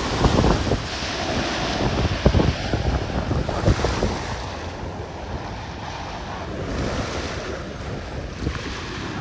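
Small sea waves breaking and washing onto the beach, swelling and fading in surges, with wind rumbling on the microphone.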